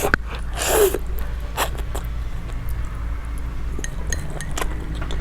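Close-miked eating sounds: small clicks of a utensil against a dish and a short burst of mouth noise about a second in, over a steady low hum.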